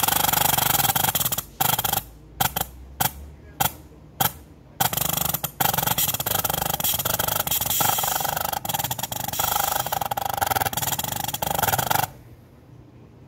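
Electro-pneumatic valve positioner venting compressed air as it strokes a double-acting pneumatic actuator toward closed. The hiss comes first in several short bursts, then runs steady and cuts off near the end as the valve reaches its closed position.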